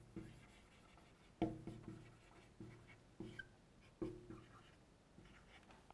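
Marker pen writing on a whiteboard: a few faint, short strokes with brief pauses between them.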